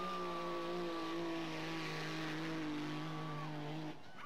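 Dodge Ram pickup's Cummins turbo-diesel engine running at high revs under full load as it drags a pulling sled, its pitch sagging slowly through the run. The engine sound stops abruptly about four seconds in, as the truck makes a full pull.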